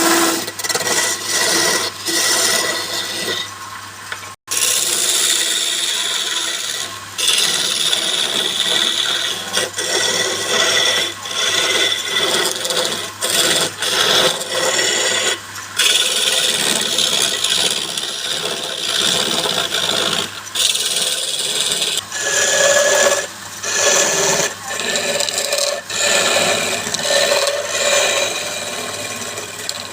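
Wood being cut or sanded on a spinning wood lathe: a continuous scraping hiss from the tool or abrasive against the turning workpiece, easing off and coming back every second or two, over a low steady hum. It cuts out for an instant about four seconds in.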